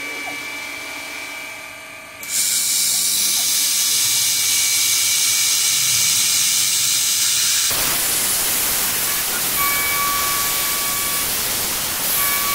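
Mist-coolant spray hissing steadily at the end mill of a CNC milling machine cutting aluminium, with a faint steady whine from the spindle underneath. The hiss comes on suddenly about two seconds in, and about eight seconds in it turns coarser and spreads lower.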